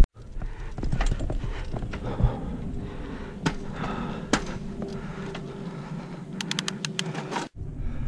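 Mountain bike riding over gravel and grass: tyre noise and a low rumble, with sharp clicks and rattles from the bike and a quick run of clicks near the end.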